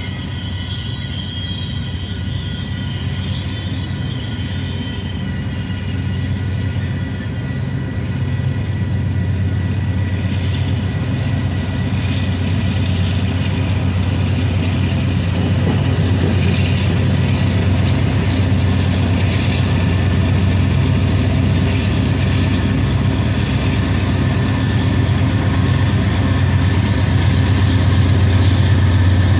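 Loaded coal train rolling past, its hopper cars giving a steady rumble, with wheel squeal in the first several seconds. A Union Pacific diesel locomotive near the tail of the train comes closer, and its engine hum grows louder toward the end.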